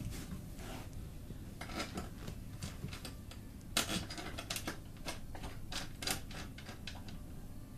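Irregular clicks, taps and light rattles of a canvas dog cot's frame parts being handled and fitted together during assembly, the sharpest knock a little before the middle.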